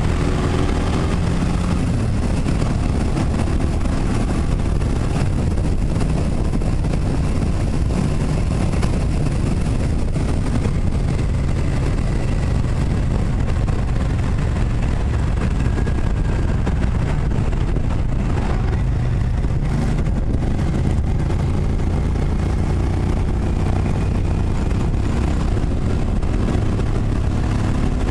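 Motorcycle engine running steadily at cruising speed, mixed with heavy wind and road noise on a bike-mounted microphone.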